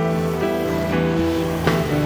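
Background music with sustained instrumental notes.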